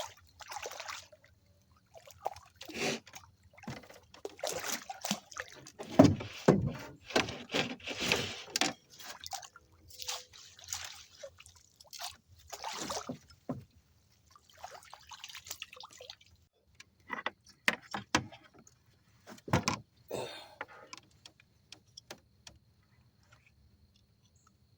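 Irregular water splashing and sloshing with scattered knocks and rustles, from a freshly caught catfish being handled at the water.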